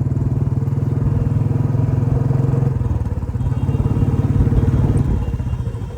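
Royal Enfield Bullet single-cylinder four-stroke engine running under way, its exhaust beats closely and evenly spaced. The engine note eases off near the end.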